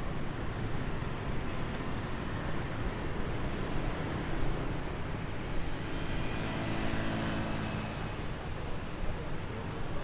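City street traffic: a steady wash of engine and tyre noise, with a humming pitched tone standing out for a second or two about six seconds in.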